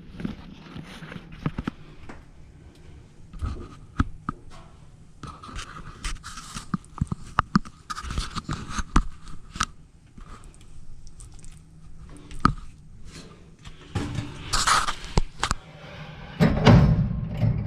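Scattered clicks, light knocks and scrapes of dryer parts and tools being handled, with a louder scraping noise about a second before the end.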